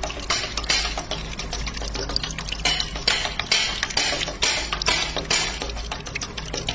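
Stone oil mill pressing groundnuts: a low steady hum under a run of sharp ticks and clinks about two a second. Fresh groundnut oil streams from the mill's spout into a steel pot.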